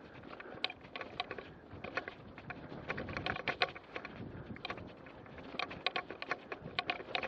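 Mountain bike riding over a rutted grassy dirt cart track: steady tyre and wind noise with many irregular rattles and clicks as the bike jolts over the bumps.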